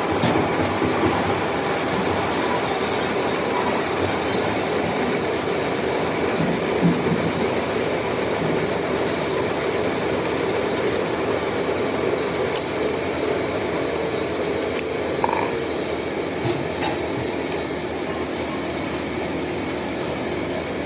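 Metal lathe running and cutting a cast iron pulley, a steady machining noise with a few sharp metallic clicks and clinks.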